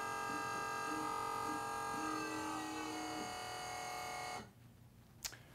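Small electric pump motor on a fuel-blending demonstration board running with a steady whine while it delivers the last of the second product to the 80% mark; its pitch sinks slightly about two seconds in and it cuts off suddenly about four and a half seconds in as the load completes, followed by a single click.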